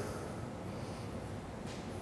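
Pause in speech: faint room tone through the microphone, a steady low hum and hiss, with a short faint breath near the end.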